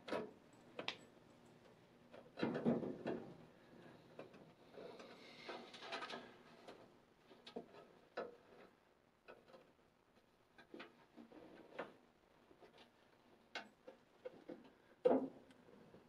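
Handling noise inside a furnace cabinet: scattered light clicks and rustles of wiring being pushed aside, with a few louder knocks and a short scrape as the sheet-metal blower housing is worked loose, the sharpest knock near the end.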